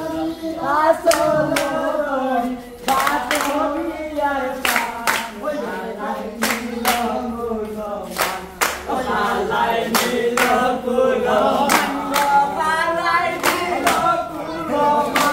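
A group of voices sings a Sylheti dhamail folk song together, without instruments, to sharp rhythmic hand claps that come in quick pairs and threes.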